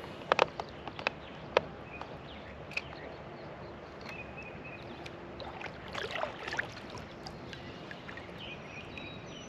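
A few sharp clicks and knocks from handling a spinning rod and reel aboard a plastic fishing kayak, with a quick cluster of clicks about six seconds in, over a steady open-air background.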